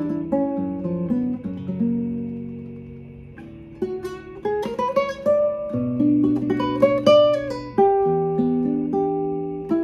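Jose Antonio 6C nylon-string classical guitar played fingerstyle: a slow melody over held bass notes. The notes are left to ring and fade away about two to three seconds in, then the playing picks up again.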